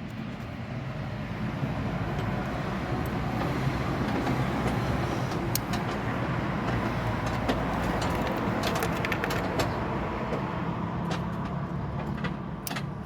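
Steady rumble of a motor vehicle, swelling slightly after a couple of seconds, with scattered light metallic clicks.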